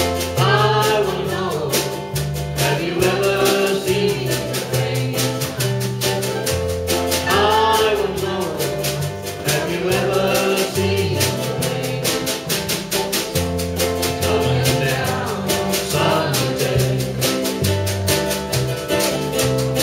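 Live acoustic band playing a song: strummed string instruments and a drum keeping a steady beat, with a man and a woman singing.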